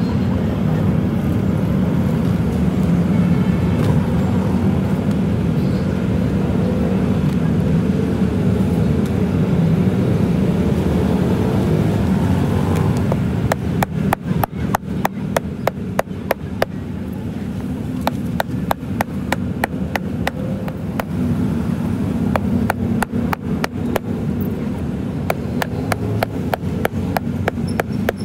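A steady low rumble for the first half, then from about halfway a hammer tapping small nails into tire rubber in quick, even strokes, roughly two or three a second.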